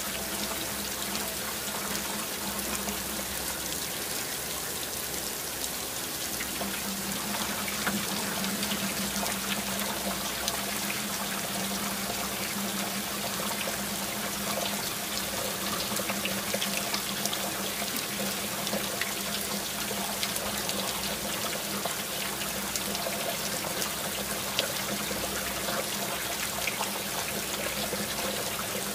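Waterfall: a steady rush of falling water with scattered small splashes, over a faint steady low hum.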